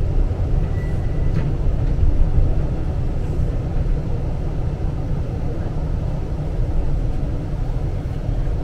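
Steady low rumble of a tram running on its rails, heard from inside the passenger car.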